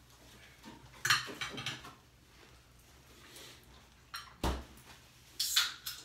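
Spoon and fork clinking against dinner plates in a quick cluster about a second in. A dull thump comes a little past the middle, and more clatter follows near the end.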